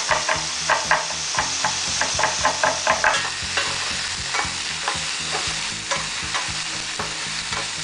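Diced potatoes sizzling in olive oil in a frying pan while being stir-fried, a utensil clicking and scraping against the pan over a steady hiss; the strokes come quickly for the first three seconds or so, then more sparsely. The potatoes are being fried until they turn translucent.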